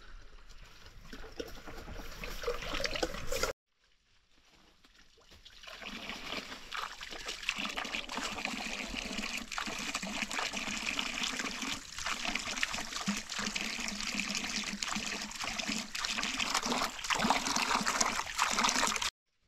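Water running from a plastic pipe into a clay water pot, getting louder as the pot fills. After a sudden break, the pipe's stream splashes steadily into a metal basin, fading in and then holding until it cuts off near the end.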